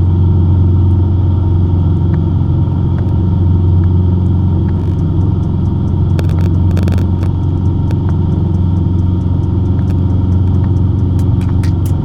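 Cessna 150's four-cylinder piston engine and propeller droning steadily in cruise flight, heard from the cabin. A short burst of crackle comes about halfway through.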